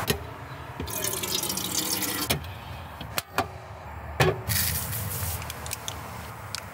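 Water being poured into a vessel, twice, its pitch rising as the vessel fills. Between the pours come several sharp clicks and knocks of a kettle and lid being handled on a small camping gas stove.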